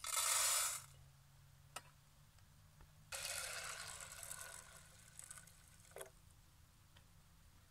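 Dry red beans poured from a plate into a copper pot, a short loud rattle in the first second. About three seconds in, water is poured from a jug onto the beans, filling the pot and fading over a couple of seconds. There are light knocks of metal on the pot in between.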